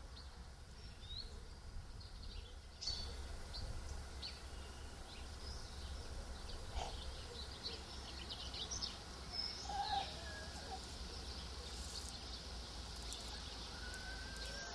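Outdoor field ambience: small birds chirping in short, scattered calls over a low, steady rumble.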